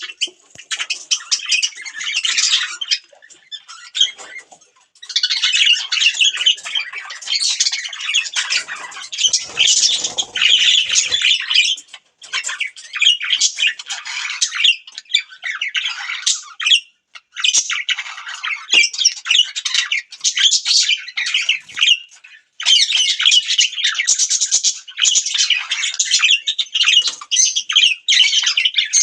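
Budgerigars chirping and chattering in fast, warbling runs with short squawks, broken by brief pauses.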